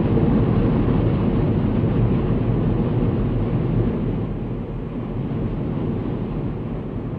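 A warship under way at sea: a steady low rumble with a rushing wash of water, a little louder in the first few seconds and easing slightly after about four seconds, over a low steady hum.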